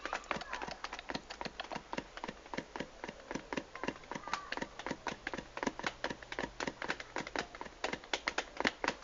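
A cat drumming: rapid, fairly even tapping at about five taps a second that keeps going without a break.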